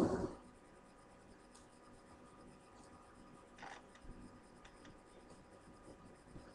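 A plastic basket set down on a cardboard surface with a short clatter at the very start, then faint scratching and rubbing as hands press tape along the inside edges of the basket.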